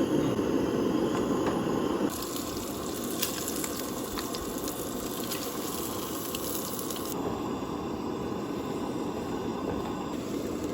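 Bacon and eggs sizzling, a steady hiss with fine crackling pops that grows brighter about two seconds in and eases a little about seven seconds in.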